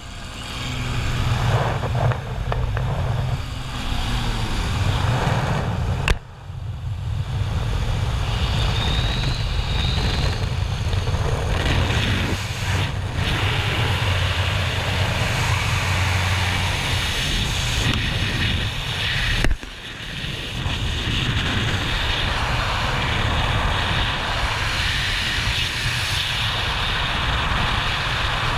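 Small single-engine propeller plane's engine drones steadily, with wind rushing in through the open door. About two-thirds of the way through the engine drone drops away, leaving only a steady rush of wind on the microphone in freefall.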